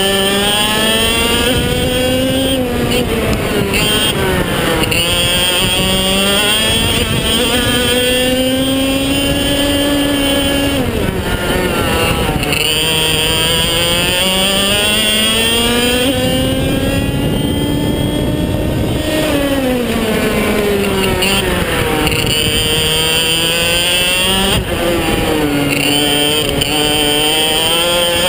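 Maxter 100cc two-stroke kart engine on a CRG kart, heard onboard at racing speed: its pitch climbs steadily along the straights and drops sharply several times as the kart slows for corners.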